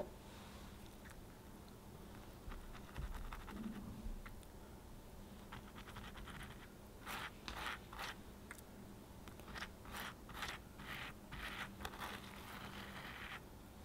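Pastry brush dabbing and brushing coffee syrup onto a soft chocolate biscuit sponge: a run of short, soft scratchy strokes that starts about halfway in and keeps going until near the end.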